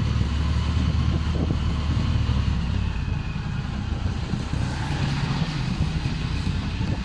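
Motorcycle engine running steadily while riding, heard from the bike itself, with a steady rush of road noise.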